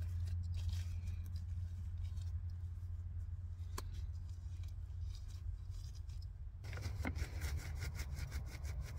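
Wet shampoo cap rustling faintly as it is adjusted over the hair, then crinkling and rubbing much more densely from about two-thirds in as both hands massage it against the scalp to work up the shampoo. A steady low hum runs underneath.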